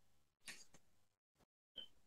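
Near silence: room tone, with two faint brief ticks, one about half a second in and one near the end.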